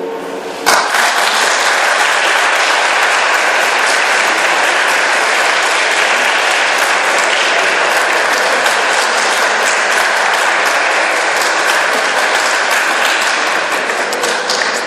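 A choir's last sung chord ends in the first moment, then the audience breaks into applause about a second in: dense, steady clapping that eases off slightly near the end.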